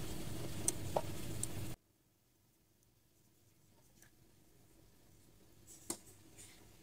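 Faint rustle and small clicks of a crochet hook working yarn, over a steady hiss and hum that cuts out abruptly under two seconds in, leaving near silence with a soft click near the end.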